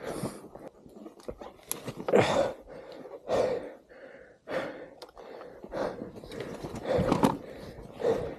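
A person breathing hard and gasping after exertion, irregular heavy breaths about once a second, with scuffing steps on the trail.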